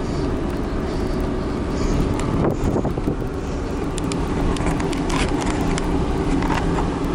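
Vehicle cab noise while driving on a dirt road: a steady engine and tyre rumble, with scattered light ticks.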